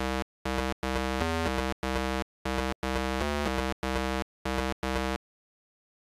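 Synthesized chiptune buzz in a stuttering run of about nine short and longer pulses, mostly on one pitch, stopping about five seconds in. It is the cartoon engine sound of a pixel-art articulated dump truck.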